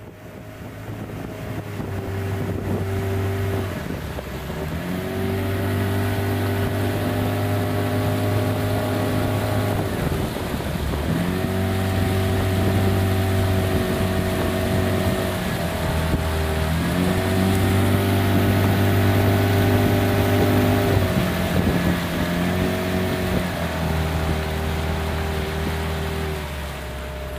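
Motorboat engine running at steady speed, its pitch dipping and climbing back several times as the throttle is eased and reopened, with a hiss of wind and water over it.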